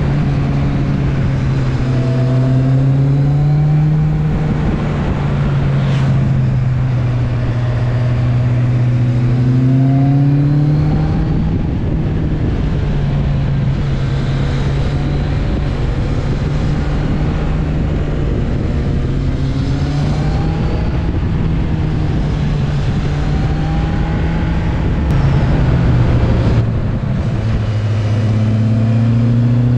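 Inline-four motorcycle engine heard from on board at a relaxed cruise, its note rising and falling gently with the throttle, with a drop in pitch a few seconds before the end.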